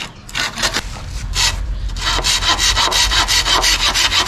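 A knife blade scraping along a green bamboo tube in quick, even strokes, about five or six a second, with a short pause about a second and a half in.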